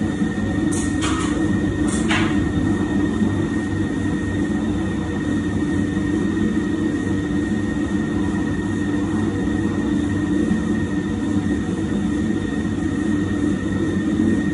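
Large bakery stand mixer running steadily, mixing shortbread dough as it comes together: a constant hum with a thin high whine. A few light knocks about a second or two in.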